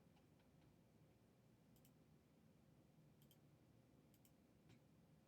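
Near silence: room tone with a few faint, scattered clicks, several close together at the start, then single ones every second or so.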